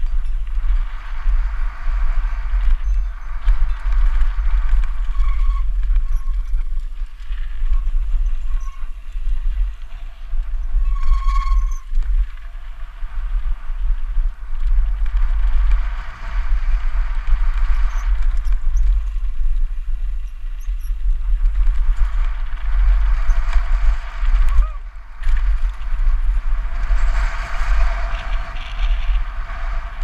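Wind buffeting a helmet-mounted action camera on a fast mountain-bike descent, a steady heavy rumble, with the bike's tyres rattling over a dirt and gravel trail in waves that swell and fade. A short high squeal comes about 11 seconds in.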